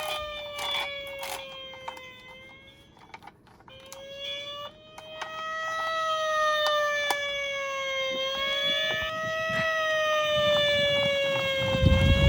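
Electronic siren of a toy emergency vehicle wailing, its pitch slowly rising and falling about every four seconds and dropping away briefly near the start. Small clicks and a low rumble from plastic toy cars rolling down a slope, loudest near the end.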